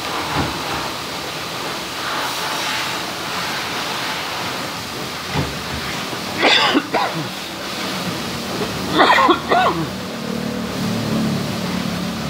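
High-pressure washer jet spraying water onto a motorcycle, a steady hiss throughout, with two brief bursts of voices in the middle.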